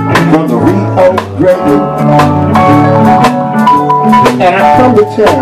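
Live country band playing an instrumental break: a steel guitar plays sliding, bending notes over electric bass and a steady drum beat.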